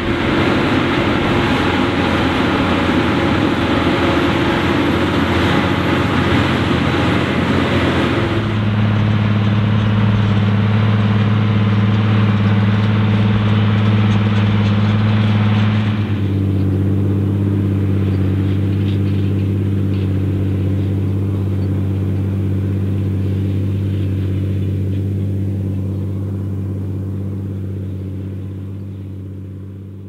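Large Fendt tractor engines working hard under the load of deep ploughing, a steady drone of diesel engine with a lot of mechanical noise over it. After an abrupt change about eight seconds in, a deeper steady engine hum follows. After another change about sixteen seconds in, the roaring engine of a Fendt 512C pulling a plough drones steadily and fades out near the end.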